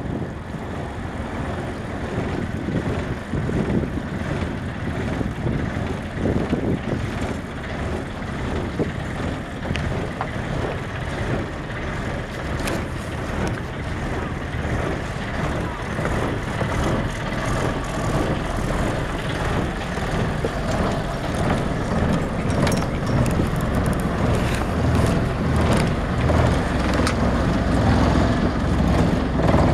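Inboard diesel engine of a Yanmar Tobiuo 32 fishing boat running steadily as the boat moves under way, growing gradually louder over the course of the sound.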